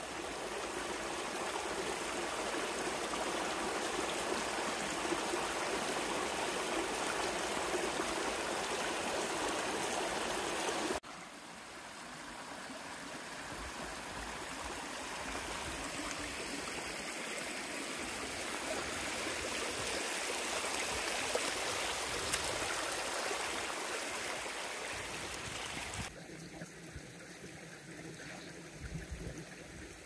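A shallow, rocky hill stream rushing over stones in a steady rush of water. The level drops suddenly about eleven seconds in, and again, lower still, a few seconds before the end.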